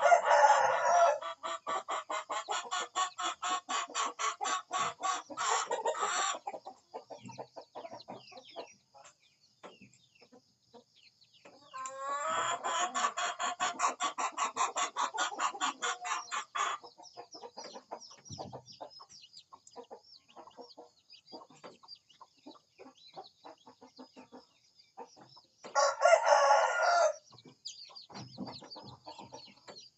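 Chickens in a farmyard: a rooster crows just as it begins and again briefly a little before the end. In between come two long runs of rapid, even clucking or cackling, about five a second, each lasting several seconds. A faint steady high-pitched tone sits underneath throughout.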